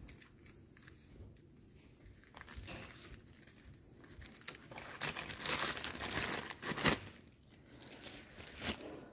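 Hands working on an engine under reassembly: crinkling, rustling handling noises with a few short sharp knocks, busiest about five to seven seconds in and once more near the end.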